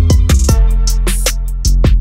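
Background music: an electronic hip hop beat with a heavy bass line and a steady drum pattern.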